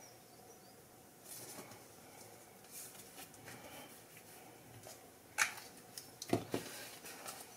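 Faint rustling and sliding of paper and card stock under the hands as a paper strip is pressed down on a folded card. A few sharp taps come at about five and a half and six and a half seconds in.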